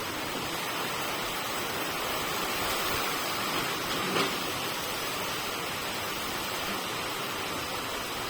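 Steady rushing wind noise with no rise or fall, and a brief faint tap about four seconds in.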